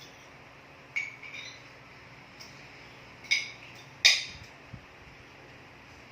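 Cutlery clinking against dishware during a meal: a handful of sharp clinks with a brief ring, the loudest two a little past three and four seconds in, over a steady faint hiss.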